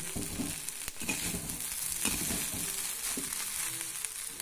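A perforated steel spatula stirring and turning dhokla pieces in a hot kadhai of tempering, with repeated scrapes and light knocks against the pan over a faint, steady sizzle.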